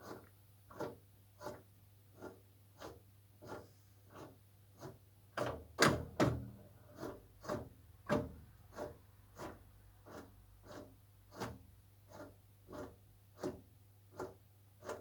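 Heating boiler making an odd, regular ticking knock about one and a half times a second over a steady low hum, the knocks louder for a couple of seconds around the middle. The owner takes it for an abnormal noise.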